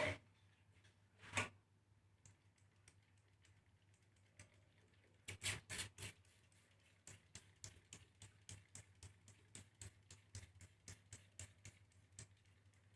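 Faint dry ticks and clicks of millet and other small seeds dry-roasting in a pan, at about three a second in the second half, with a few louder bursts about five to six seconds in.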